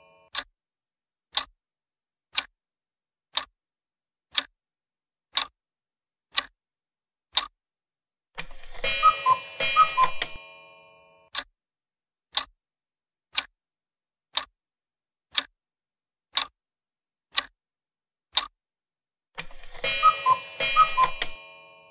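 Sound-effect clock ticking once a second as a quiz countdown timer. About nine seconds in, and again near the end, a short jingle of several quick notes marks the answer being revealed.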